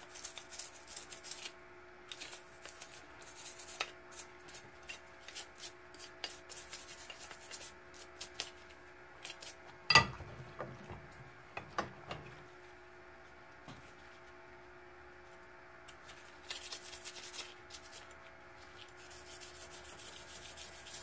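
Hand scrubbing of a revolver's metal parts, in spells of short, quick scratchy strokes. About ten seconds in there is a sharp metallic clank with a brief ring, and a lighter knock follows a couple of seconds later, like a part being set down on the bench.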